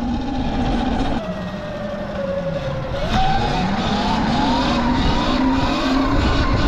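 Sur-Ron electric dirt bike's motor whining over road and wind rumble. The pitch drops and the sound eases off about a second in, as the bike slows, then climbs again about three seconds in as it speeds back up.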